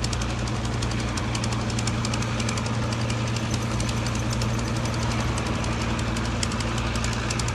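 An engine running steadily at idle: a low, even hum with a fast, regular knocking tick over it.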